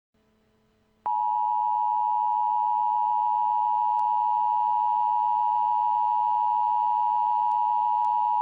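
Emergency Alert System attention signal: a loud, steady two-tone beep (853 and 960 Hz together) that starts abruptly about a second in and holds unchanged. It marks the start of an emergency alert about to be read.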